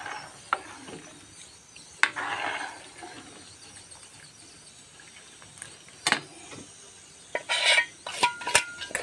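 Metal ladle stirring chicken pieces in a pan of simmering broth, with a few sharp clinks of metal on the pan and short bursts of scraping and sloshing, two of them about 2 s in and near the end.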